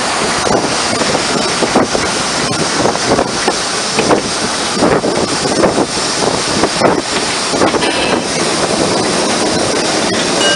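Narrow-gauge steam train running, heard from the train: a loud, steady rush of running noise and wind on the microphone, mixed with the rushing river beside the line, with uneven knocks throughout.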